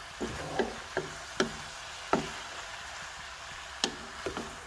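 A wooden spatula knocks and scrapes against a speckled nonstick pot as chicken and pork pieces are stirred. It makes about seven sharp, irregular clacks.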